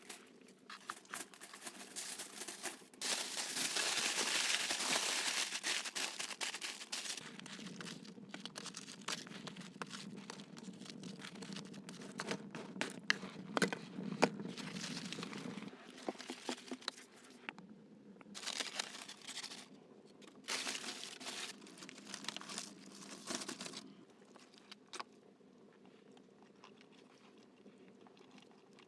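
Crisp crinkling and crunching sounds, made up of a dense run of rustles with sharp clicks and snaps among them. They are loudest about three to six seconds in and die down to faint noise after about 24 seconds.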